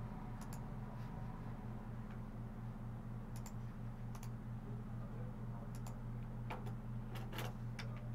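Scattered clicks of a computer mouse and keyboard, about a dozen, coming closer together in the last few seconds, over a steady low hum.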